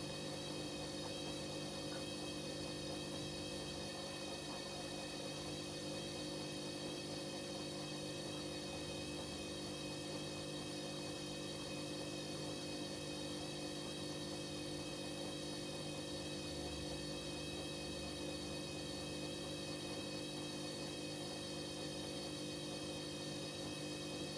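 Hoover H-Wash 300 washing machine running with a steady, unchanging hum of several held tones, typical of its motor or pump.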